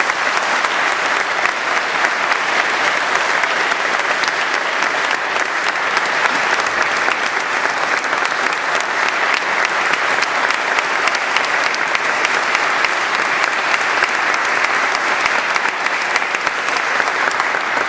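Audience applauding steadily, a dense clapping that fades out near the end.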